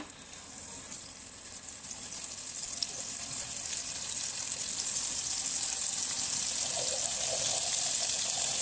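Marinated chicken pieces sizzling in hot oil in a kadhai. The sizzle grows steadily louder as more pieces are laid in.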